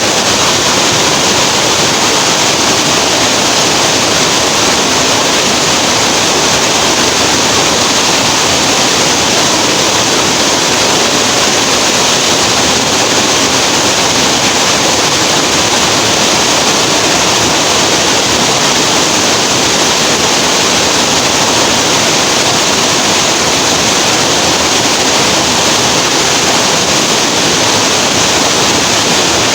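Waterfall on a tropical river: a loud, steady rush of falling water that never changes.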